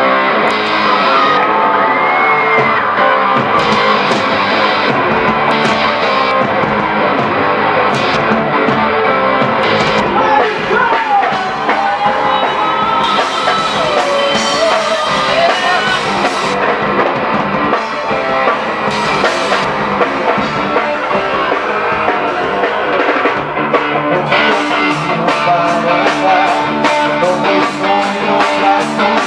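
Live band music with drum kit, guitar and singing, played in a rock-tinged forró arrangement.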